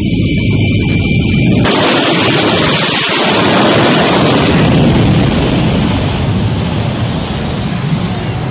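Jet truck's jet engine with afterburner: a steady high whine over a rumble, then about two seconds in a sudden loud rush of noise as it goes to full thrust and launches down the drag strip, slowly fading as it pulls away.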